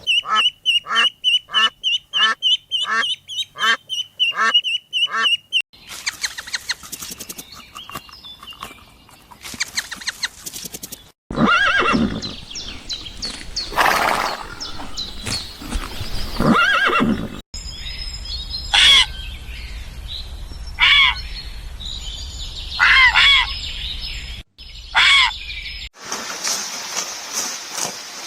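A string of short animal-call clips joined by abrupt cuts, different animals in turn. It opens with a run of about eight quick, evenly spaced calls, followed by scattered single calls over background noise.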